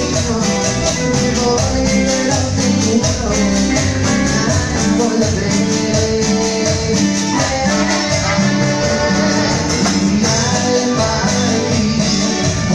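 Live cumbia band playing with a steady beat: keytar, electric guitar, brass and cymbals, with a man singing into a microphone.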